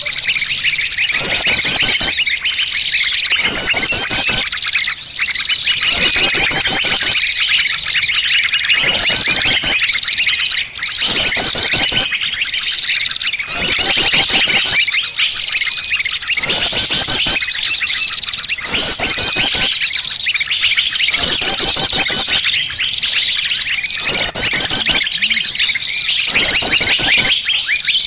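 Bird-lure recording: many small birds' chirps and calls mixed into a loud, busy chatter, with a fast high trilling phrase repeating every couple of seconds over a steady high whistle.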